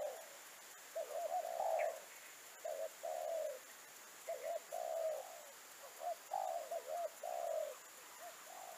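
Spotted dove (terkukur) cooing: repeated phrases of a few short coos running into a longer rolling coo, one phrase about every second and a half.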